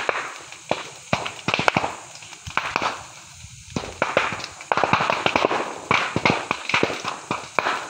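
Burning bamboo crackling, with frequent irregular sharp pops and cracks as the heated hollow culms burst.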